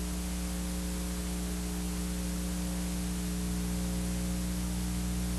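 Steady electrical hum with constant hiss in the recording, with no other event.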